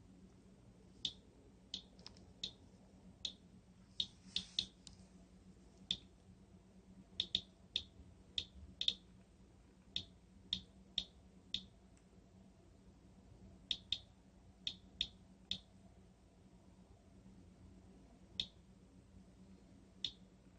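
Geiger counter clicking at irregular, random intervals, about two dozen clicks with gaps of up to a few seconds. The low count rate is only a little above background: the furnace filter's earlier high reading has dropped away.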